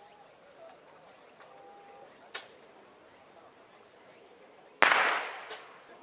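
Firecrackers going off: a single sharp pop about two seconds in, then a much louder bang with a hissing crackle that fades within a second, and another pop just after it.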